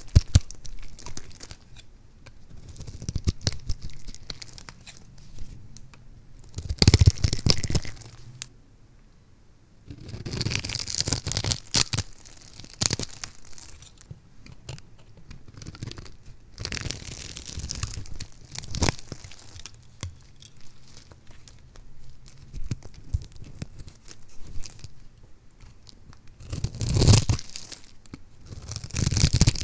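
A knife blade slicing through a scored bar of soap, the small cubes breaking off with crisp crackling and crunching. It comes in bursts of a second or two with short pauses between the cuts.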